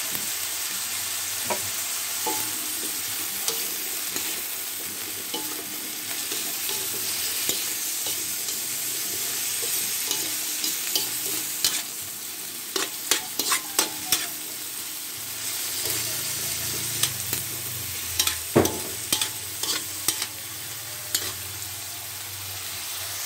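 Green beans and carrots sizzling in oil in a wok while a spatula stirs them, with clusters of sharp clinks and scrapes of the spatula against the wok in the second half.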